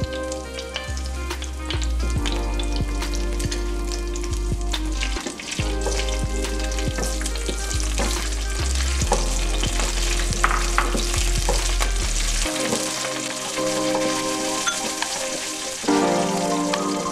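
Chopped cashews and almonds with cardamom powder sizzling and crackling in hot ghee, stirred with a wooden spatula against the pan, over background music whose bass drops out about three-quarters of the way through.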